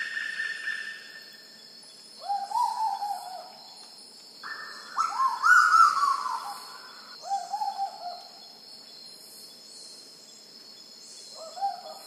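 Black-billed koel calling: bursts of short, rising notes repeated rapidly, some series pitched higher and some lower, with pauses of a second or two between bursts.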